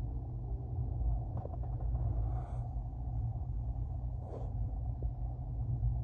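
Low, steady rumble of a freight train, heard from indoors through a closed window. Two brief soft hissing sounds come about two and a half and four and a half seconds in.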